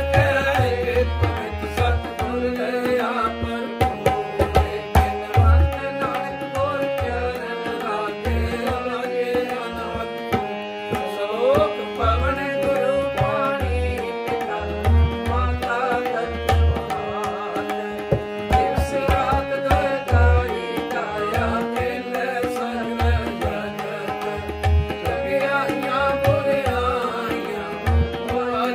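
Tabla and harmonium playing a kirtan passage: the tabla keeps a steady rhythm with deep, booming bass strokes, under a held melody that moves from note to note.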